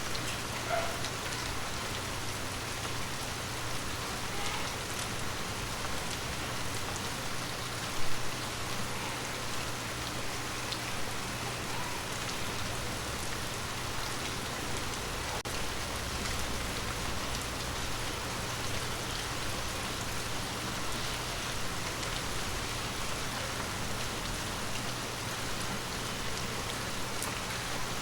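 Steady rain falling on forest leaves: an even patter with scattered individual drops, and one louder drop or tap about eight seconds in.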